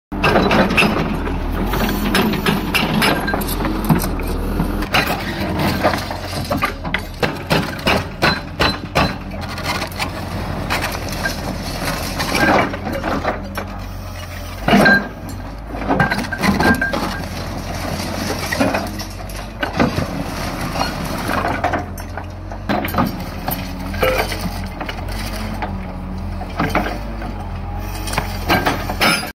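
Heavy demolition machinery breaking up a building: many irregular cracks, crunches and clinks of breaking material over a steady engine drone, with one louder crash about halfway.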